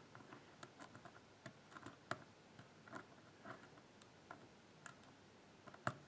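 Faint, irregular clicks of a steel hook pick and tension wrench working the pin tumblers of an old brass Lince padlock, the pins setting one by one under tension just before the lock opens.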